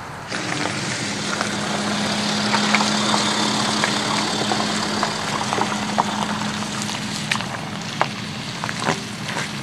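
The BMW X6 M50d's triple-turbo straight-six diesel running steadily as the SUV drives by on a gravel and dirt track, its tyres crunching over loose stones. Sharp clicks of gravel popping under the tyres come through, more often near the end as it pulls away.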